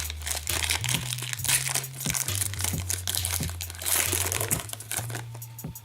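Foil wrapper of a hockey card pack crinkling and being torn open, a dense rustle that thins out near the end.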